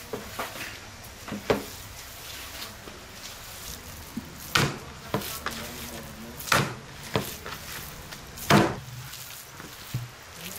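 Handfuls of minced beef mixture being lifted and slapped back down onto the pile on a metal tray during kneading: four wet slaps about two seconds apart, the last three the loudest, with softer handling sounds between.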